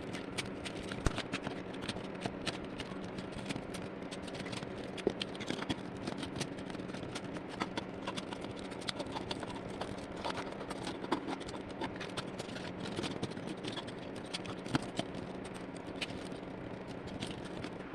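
Plastic action figure being transformed by hand: many small clicks and taps as its joints and panels are moved and snapped into place, over a steady low hum.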